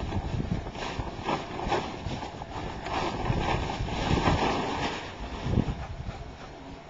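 Wind buffeting the microphone in uneven gusts, easing off near the end.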